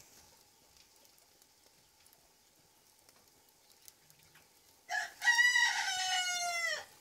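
A rooster crowing once near the end: a short opening note, then a long call of about two seconds whose pitch drops at the close.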